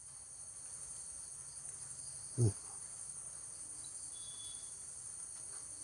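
Crickets chirring steadily and high-pitched in the background, with one brief low vocal murmur about two and a half seconds in.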